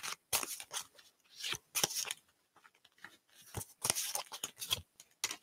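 Tarot cards being handled on a table: irregular crisp flicks, snaps and short rustles coming in small clusters, as cards are shuffled and drawn.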